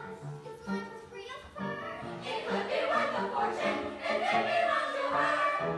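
A group of young voices singing together over instrumental accompaniment, the ensemble singing growing louder and fuller about two seconds in.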